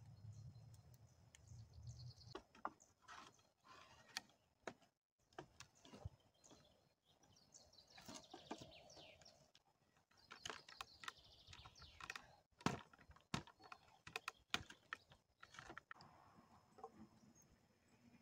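Scattered knocks and clicks of wooden poles and logs being handled and fitted together, with one sharper knock about two-thirds of the way through. Birds chirp at times in the background.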